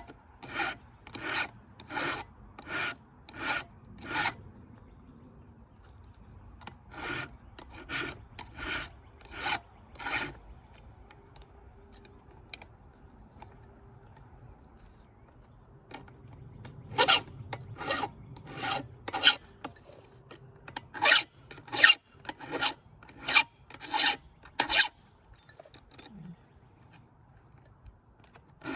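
Hand file being stroked across a chainsaw chain's cutters in a Husqvarna filing guide: rasping scrapes about every two-thirds of a second, in runs of several strokes with short pauses between runs and a longer pause near the middle.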